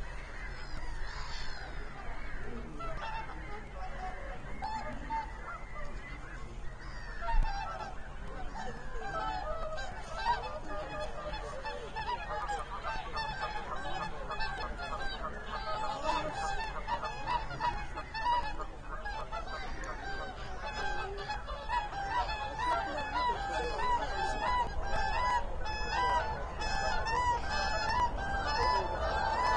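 A large flock of waterbirds calling: a dense chorus of short honking calls that grows thicker and louder toward the end, with one low bump about seven seconds in.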